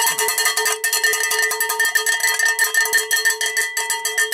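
Cowbell beaten in a fast, steady run of strikes, several a second, each strike ringing on into the next.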